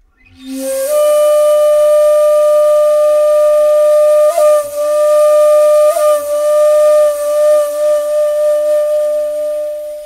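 Japanese bamboo flute playing one long, breathy held note. It starts about half a second in with a short upward slide, is broken twice by quick grace-note flicks, and wavers in vibrato before fading out near the end.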